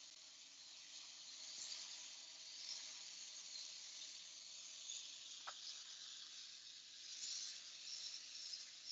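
Liquid nitrogen hissing faintly and steadily as it runs from a hose nozzle into a frozen sample aliquotter's tank and boils off into fog as the tank fills.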